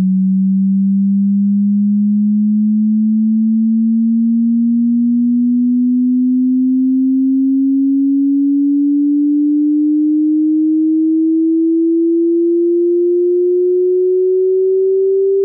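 Electronic pure sine tone sweeping slowly and evenly upward in pitch, rising about an octave, played as a hearing-test tone.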